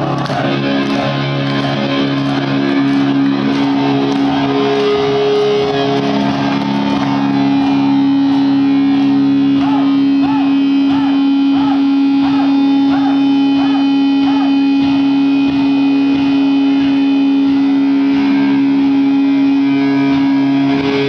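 Distorted electric guitar through a stage amplifier holding one long, steady note, with short higher notes sounding about once a second in the middle. Crowd noise fades out at the very start.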